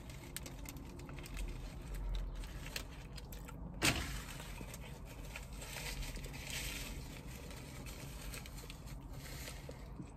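Someone eating a burger: small chewing and mouth sounds, with the paper wrapper and a paper bag rustling and crinkling. A brief sharp noise about four seconds in is the loudest moment, followed by a longer rustle of paper.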